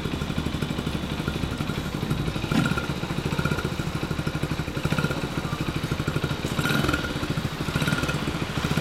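Honda Super Cub 90's small single-cylinder four-stroke engine idling with a steady, even exhaust beat through an aftermarket muffler.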